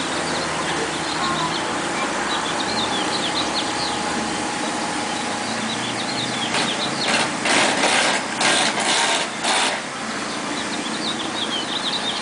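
A steady machine or engine running with birds chirping over it, and a run of several short, loud rushing bursts a little past the middle.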